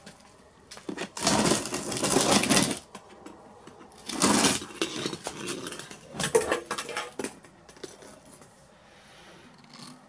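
Three bursts of rustling, scuffling noise, the first about a second in and lasting well over a second, the others about four and six seconds in.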